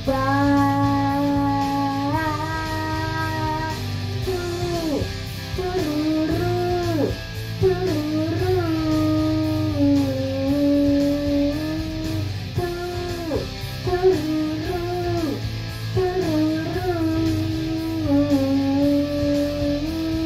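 Song backing track with a lead guitar playing a slow melody of long held notes that bend and drop sharply in pitch at their ends, over a steady low accompaniment.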